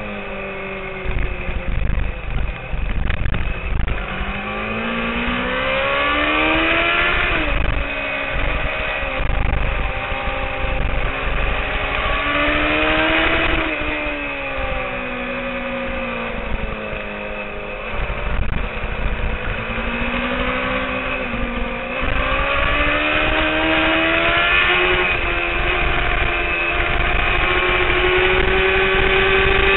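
Honda CBR600RR inline-four race engine at speed, its pitch climbing in long rises under acceleration and falling back as the rider slows for corners, several times over. Wind buffets the on-bike microphone throughout.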